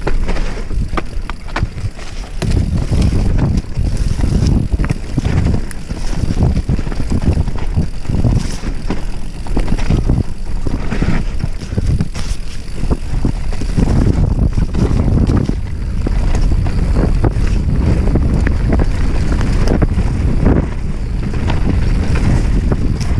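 Heavy wind buffeting on the camera microphone while a bike descends a rough trail, with frequent clicks and knocks of the bike rattling over bumps.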